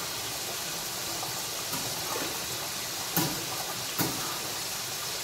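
Food sizzling as it fries in a pot while being stirred with a metal spatula, which knocks sharply against the pot twice, about three and four seconds in.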